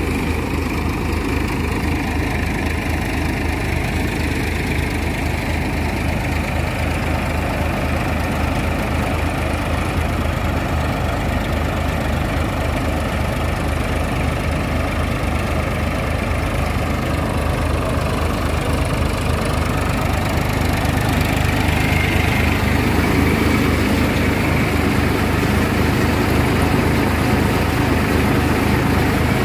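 Farmtrac 45 tractor's diesel engine running steadily under load, driving a Punjab multi-crop basket-type thresher, with the thresher running along with it. The sound grows a little louder about two-thirds of the way through.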